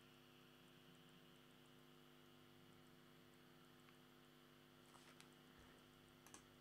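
Near silence: a faint steady electrical hum, with a few faint clicks near the end.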